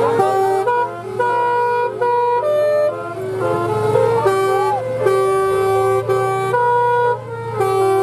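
Bus's Basuri telolet musical air horn playing a tune of stepped notes, each held for a fraction of a second, over a steady low hum.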